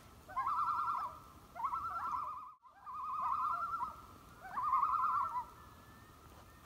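Common loon giving its tremolo call: four quavering, wavering phrases in a row, each just under a second long.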